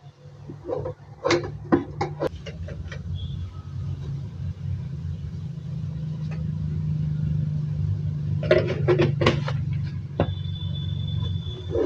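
A wooden spoon knocking and scraping in an aluminium pot during the first few seconds, over a steady low rumble. A cluster of knocks comes about nine seconds in, and a thin, steady high tone sounds briefly near the end.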